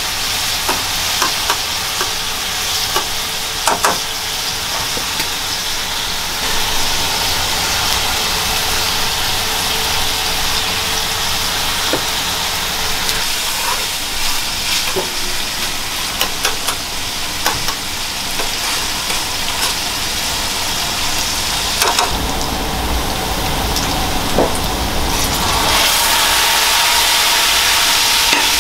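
Sliced onions and diced bacon sizzling in olive oil in a frying pan, with metal tongs clicking and scraping against the pan as they are stirred. The sizzling gets louder near the end.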